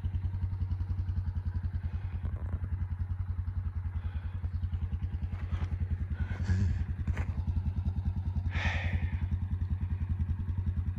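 A vehicle engine idling steadily with an even, rapid low pulse. There are a couple of brief scuffs about two-thirds of the way through.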